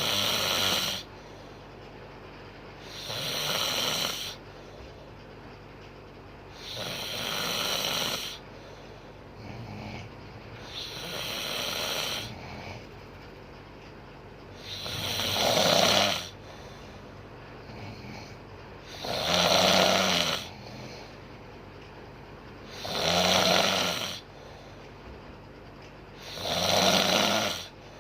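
A woman snoring in her sleep, about one snore every four seconds; each swells over a second or so and then stops.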